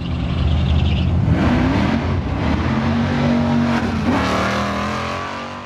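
Car engine running and revving, its pitch rising and falling a few times, then cutting off just after the end.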